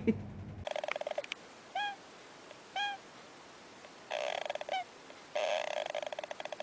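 An animal calling: two short squeaky calls that rise and fall, about a second apart, then stretches of rapid rattling trill with more squeaks mixed in.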